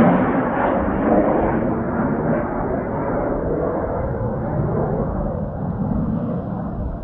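Jet roar from Blue Impulse's Kawasaki T-4 jet trainers flying past, a heavy rumble that grows steadily duller as the aircraft move away.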